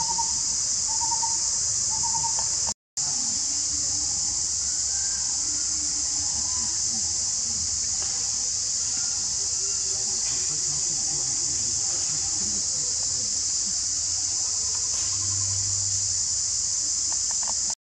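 Steady high-pitched drone of an insect chorus in forest, with faint scattered calls underneath. The sound cuts out for a moment about three seconds in.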